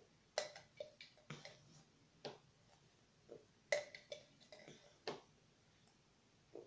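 A spoon clicking and scraping against the sides and bottom of a nearly empty plastic cup as the last of a smoothie is scooped out. About eight short, irregularly spaced clicks and taps.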